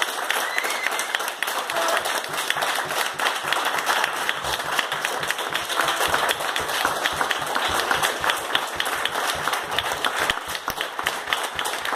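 Audience applauding: many hands clapping steadily throughout.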